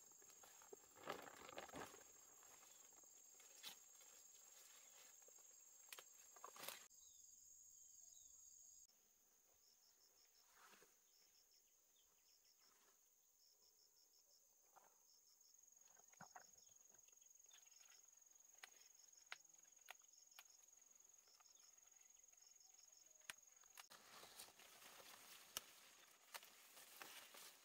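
Faint insect chirping: a steady high-pitched drone, with short pulsed chirps in small groups repeating about once a second through the middle stretch. Scattered light clicks and rustles.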